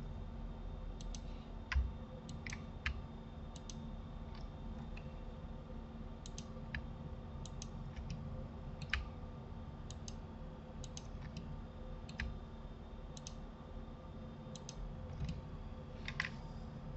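Irregular clicks of a computer mouse and keyboard, many in quick pairs, over a steady low hum.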